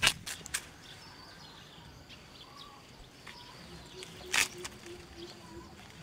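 Outdoor background with faint animal calls, broken by a few sharp snaps: three close together at the start and a louder one about four and a half seconds in.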